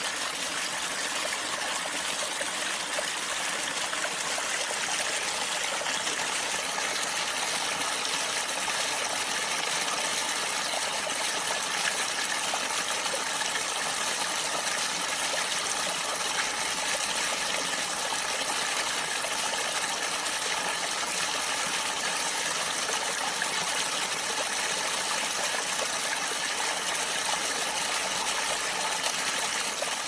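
Waterfall: water falling and splashing in a steady, unbroken rush.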